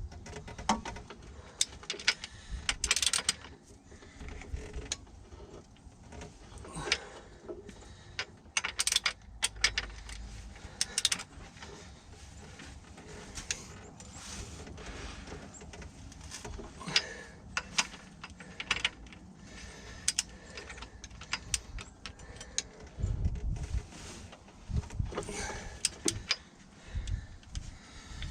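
Ratchet torque wrench clicking in irregular runs, with metal clanks, as bolts on an engine are tightened. A few low thumps come near the end, in keeping with the loose engine rocking under the wrench.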